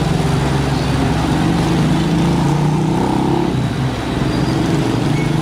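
Heavy diesel engine of road-paving machinery running steadily, with a brief dip about four seconds in.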